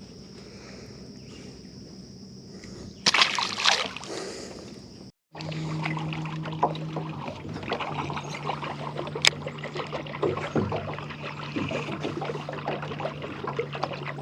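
A short burst of splashing about three seconds in; then, after a brief break, a boat motor humming steadily under the rush and slap of water against the hull as the boat moves.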